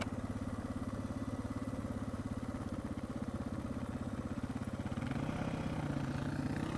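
Suzuki DR650's single-cylinder engine running at low revs with an even, rapid pulsing beat, getting a little louder about five seconds in.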